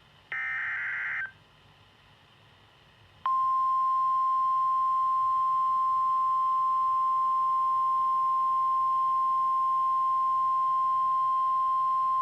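NOAA Weather Radio Emergency Alert System activation. It opens with a one-second burst of SAME digital header data, the last of its three repeats. About two seconds later comes the steady 1050 Hz warning alarm tone, held for about nine seconds, which signals that a warning message is about to be read.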